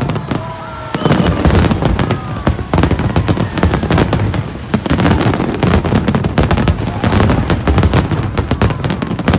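Aerial fireworks display: a dense, unbroken barrage of bangs and crackling, many bursts a second.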